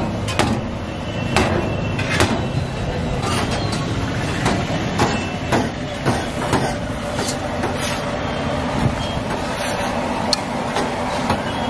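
Metal spatulas clinking and scraping on an iron griddle: irregular sharp clicks, one or two a second, over a steady background rumble of a busy street.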